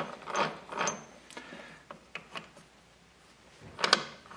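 Rebuilt dirt-bike transmission being turned by hand and shifted on the bench: a series of short metallic clicks and clunks from the gears and shift mechanism, the loudest cluster near the end.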